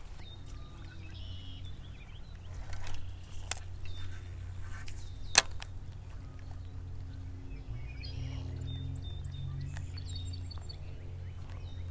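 Birds chirping over a low steady hum, with a few sharp clicks from handling a baitcasting reel during a cast and retrieve, the loudest about five seconds in.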